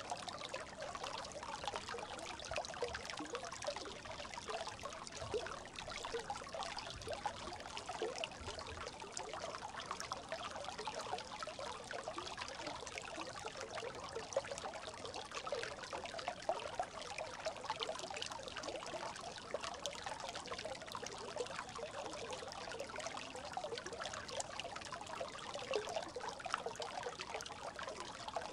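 Brook babbling steadily: a dense, unbroken run of small trickles and gurgles of running water.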